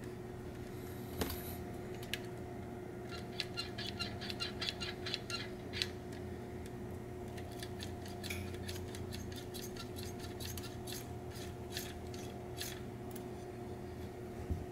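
Quick runs of small clicks and taps from fingers working the small parts of a 1/6-scale Honda Monkey model motorcycle: a dense run a few seconds in, then scattered clicks for several seconds, over a steady low hum.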